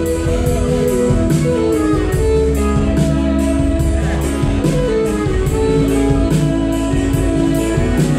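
Live country band playing an instrumental passage without vocals: strummed acoustic guitar, pedal steel guitar and bass over a steady drum beat.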